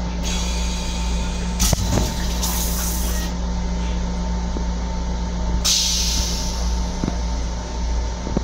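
Steady low hum and rumble of an M7 commuter railcar heard inside its restroom, with two stretches of air hissing of about three seconds each and a sharp knock about two seconds in.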